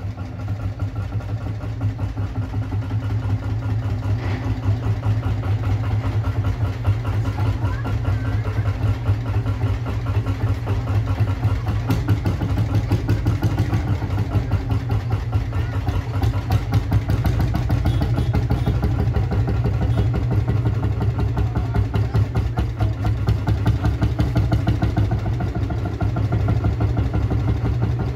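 Lanz Bulldog tractor's single-cylinder two-stroke hot-bulb engine running, a rapid even pulsing that grows louder over the first few seconds.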